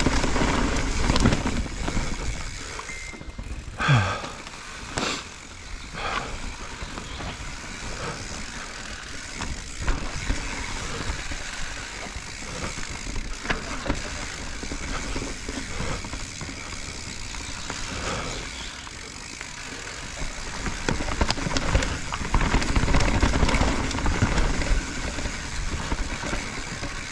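Mountain bike riding down a dirt forest singletrack: the tyres roll over dirt, leaves and roots, and the bike rattles steadily. Sharp knocks from bumps come a few times in the first half. The rumble is loudest near the start and again in the last several seconds.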